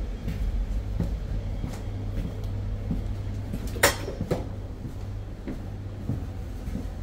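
Steady low hum inside a parked AVE high-speed train carriage, with soft footsteps and small knocks, and one sharp metallic clack just before four seconds in.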